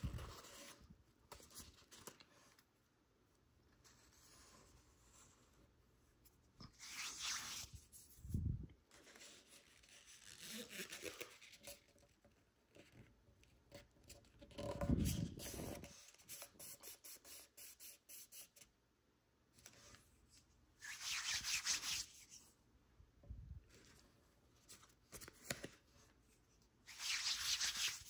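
A sheet of origami paper being folded and creased by hand: separate rubbing, rustling swishes every few seconds, with a couple of soft thuds against the work surface.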